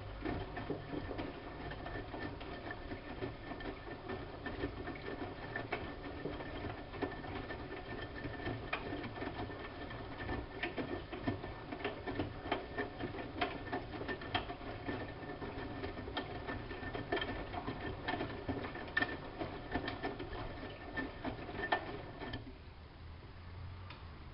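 Siemens Siwamat IQ washing machine running its drum: a steady motor hum with frequent small clicks and knocks. It stops abruptly about 22 seconds in.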